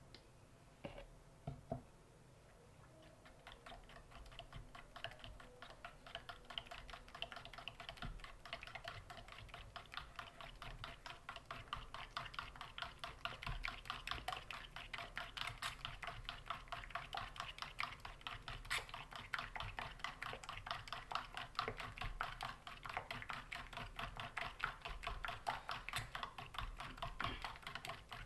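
Hand whisk beating egg yolks into batter in a stainless steel bowl: a few knocks, then from about three seconds in a rapid, steady clicking of the utensil against the metal bowl that grows louder and keeps going.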